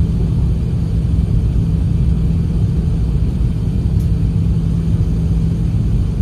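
Steady low roar of an Airbus A380 in flight, heard inside the cabin at a window seat shortly after takeoff: engine and airflow noise with a constant hum underneath.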